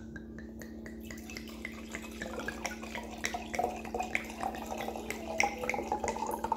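Rosé wine being poured from a glass bottle into a stemmed wine glass: splashing and trickling that grows louder and busier from about two seconds in.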